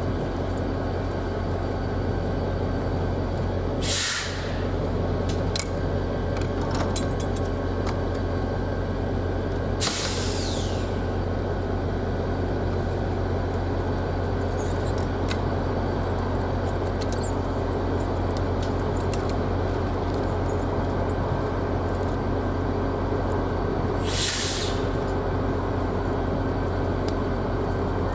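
Train standing at a station with its diesel locomotive idling as a steady low hum, broken three times by short sharp hisses of compressed air venting from the air brake system.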